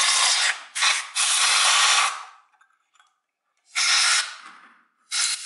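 Compressed air from a handheld blow gun blasting through a carburetor body and its float-chamber cover to clean them out: several loud hissing bursts, the longest over a second, with short silences between.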